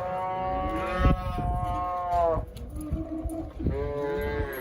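Cattle mooing: one long call that drops in pitch as it ends, a shorter, lower call after it, then another call starting near the end.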